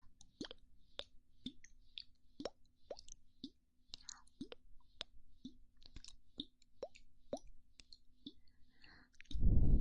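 ASMR mouth pops made close to the microphone, about two a second, each a sharp wet pop with a quick upward swoop in pitch. Near the end a loud rush of breath blown onto the microphone starts suddenly.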